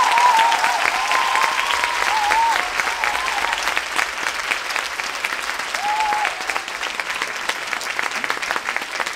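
Audience applauding, slowly dying down, with a few cheers over the clapping in the first seconds and once more around six seconds in.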